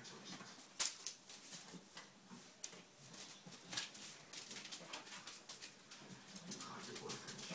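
Bullmastiff puppies moving about on paper sheets over a hard floor: irregular rustling and crinkling of paper and scrabbling claws, with scattered sharp clicks and knocks, the sharpest a little under a second in.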